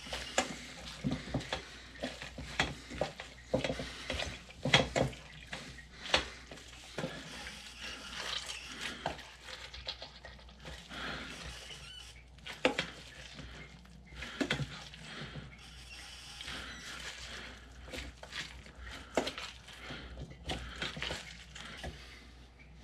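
Irregular clinks and knocks of dishes and utensils being handled, with no steady rhythm.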